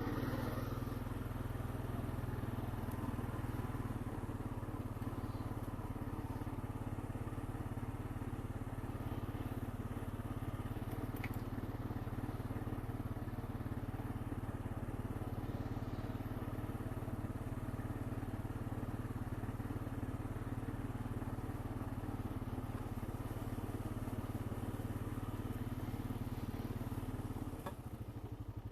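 Honda Rancher 420 ATV's single-cylinder four-stroke engine running steadily at low, even riding speed, easing off and a little quieter near the end.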